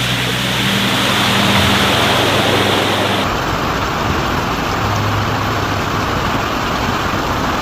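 Loud, steady rushing of floodwater, with an abrupt change in its sound about three seconds in.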